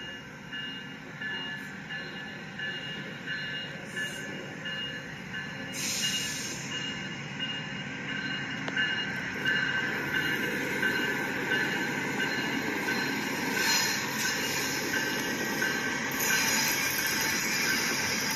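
Train rolling on the rails and growing louder as it comes closer, with a high, pulsing wheel squeal.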